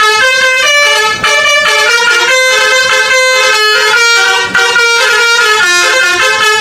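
A telolet bus horn, the multi-tone Indonesian bus horn, playing a quick tune of held notes that change pitch every fraction of a second.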